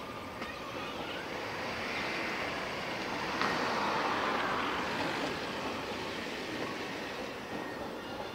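Container wagons of a freight train rolling along the track, a steady rumble that swells a little about midway and then eases.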